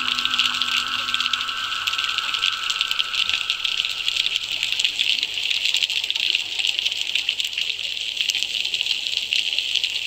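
Dense underwater crackle: a steady hiss of countless tiny clicks. Two held tones die away in the first half.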